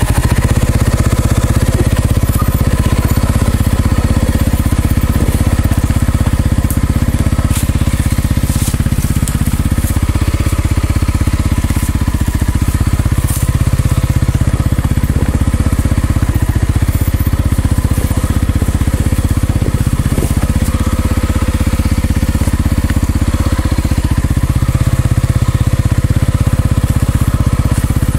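Dirt bike engine running steadily under way on a trail, its level holding even with only small dips and rises.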